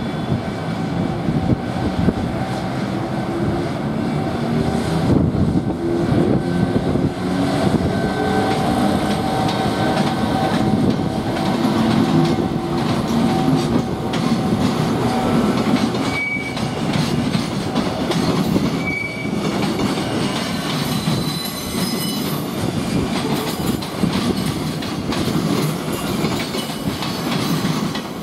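EF510 electric locomotive hauling a container freight train pulling away, its wagons rolling past with wheels clacking over rail joints. A thin motor whine fades after about twelve seconds, and two short high wheel squeals come a little past halfway, with more faint squealing near the end.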